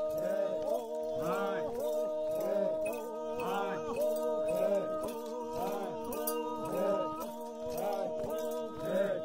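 Background music: several sustained held notes over a steady repeating rhythm of about two beats a second.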